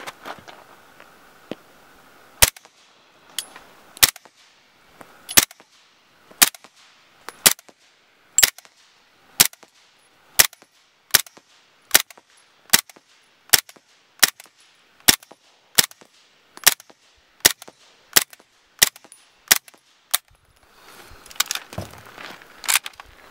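Heckler & Koch MP5K in 9mm firing subsonic rounds through a dry Gemtech Multimount suppressor. About twenty-two single suppressed shots start slowly and quicken to nearly two a second. Clattering handling noise follows near the end as the gun is lifted.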